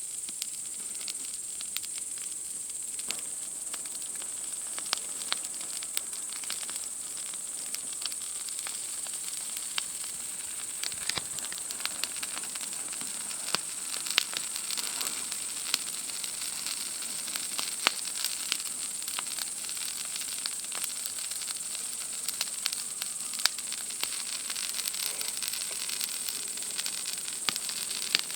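Wood fire crackling, with irregular sharp snaps and pops, over a steady high-pitched chorus of night insects.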